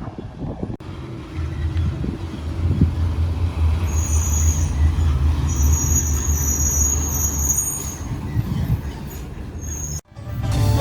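A heavy truck's diesel engine running as it drives past, loudest in the middle, with a thin high whine over it. Near the end the sound cuts off abruptly and music starts.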